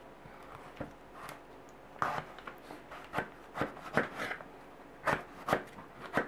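Lengthwise-sliced eggplant being handled and its slices spread apart on a wooden table: a string of irregular light knocks and rubbing sounds, starting about two seconds in.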